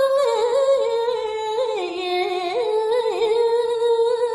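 A woman's solo voice singing a Balinese geguritan verse unaccompanied: one long held, melismatic line with wavering ornamental turns, dipping lower about halfway through and rising again.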